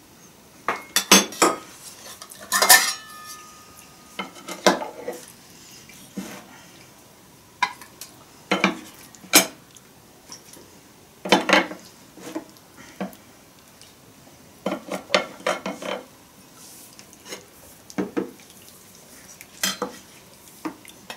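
Spoons and a serving spoon clinking and scraping against metal bowls and plates during a meal, in irregular scattered clinks; one strike about three seconds in leaves a short metallic ring.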